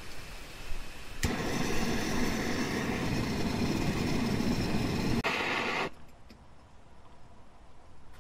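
Portable gas-canister stove lit with a click about a second in, its burner then running with a steady loud hiss. The hiss cuts off after about four and a half seconds, leaving only a faint background.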